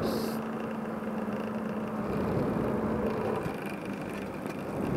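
Small cooling-pad fans running close to the microphone, with a rough, uneven snoring noise. The snoring comes from a fan whose rotor pumps up and down on its shaft pin.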